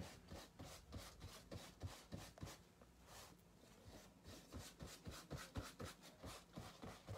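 Fingertips dabbing and rubbing acrylic paint on canvas: faint, quick, irregular soft taps, several a second.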